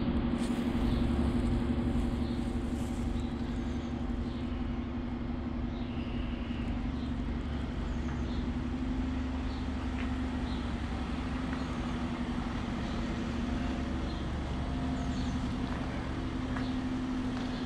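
A steady low mechanical hum held at one pitch, over an even outdoor background, with short faint high chirps now and then.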